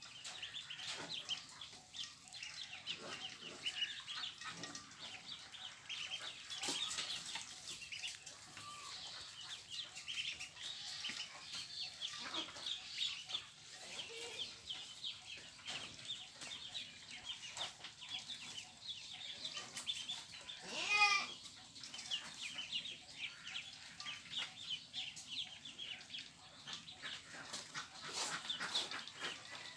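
Many young poultry peeping together in a continuous, dense chorus of short high calls. One louder, longer call stands out about two-thirds of the way through.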